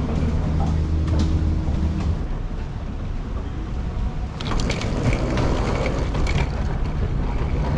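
Airport terminal corridor ambience: a steady low mechanical hum for about the first two seconds, then an even rushing noise with a few scattered clicks and knocks around the middle.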